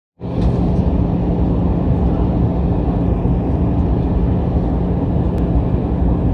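Cabin noise inside an Airbus A320 on approach, heard beside the engine: a steady rumble of engine and airflow with a low hum underneath, starting abruptly just after the beginning.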